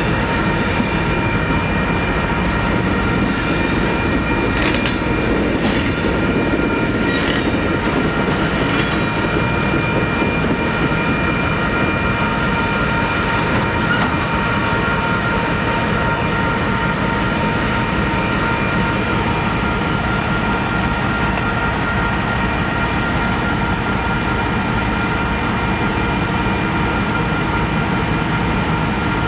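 Union Pacific train rolling past with its wheels squealing in steady high tones over a continuous rumble, and sharp clicks from the wheels during the first several seconds. The lowest squeal tone fades out about two-thirds of the way through.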